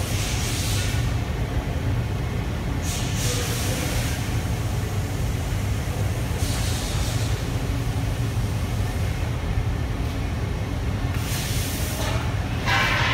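Steady low machine rumble of a glass-blowing workshop, with short bursts of hissing about three, six and eleven seconds in, and a louder burst of noise near the end.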